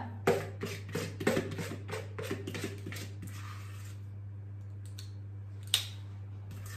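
Metal scoop scraping and clicking against the inside of a mixing bowl, gathering up the last of the muffin batter: a quick, irregular run of scrapes for about three seconds, then one sharp knock near the end. A steady low hum runs underneath.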